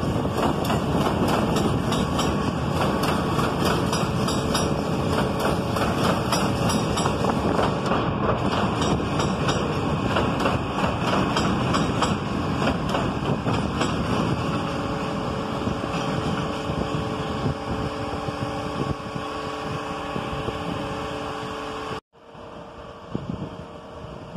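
NYC subway train of R160B cars passing on elevated track: loud wheel-and-rail noise with a rapid, regular clatter over rail joints. The clatter fades as the train moves off, leaving a steady hum of several tones, and near the end it gives way abruptly to a quieter background.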